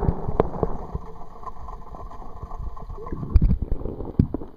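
Pool water sloshing and splashing around a camera held at and under the surface, with irregular knocks and gurgles as the water slaps the microphone; a cluster of louder knocks comes a little past the middle.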